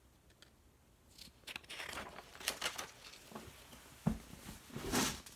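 A page of a picture book being turned and the book handled: paper rustling and crinkling with a few soft clicks, a low thump about four seconds in, and a louder swish of the page near the end.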